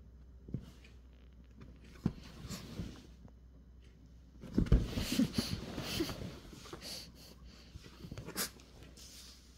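Pekingese puppy play-pouncing on a hand on a leather sofa: scuffling and bumps against the leather, mixed with the dog's own noises. It is busiest from about four and a half seconds in, with a heavy thump at the start of that stretch.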